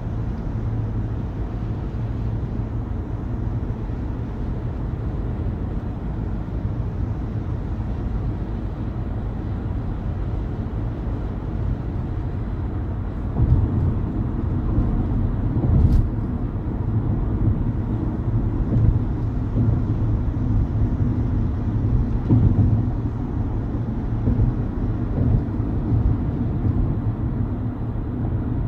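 Car driving on a highway: a steady low rumble of road and engine noise that grows louder and more uneven about halfway through, with a single sharp click a couple of seconds later.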